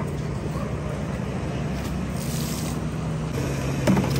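A steady low mechanical hum, like an engine running, with a short knock and slosh near the end as a steel mug is dipped into a plastic drum of water.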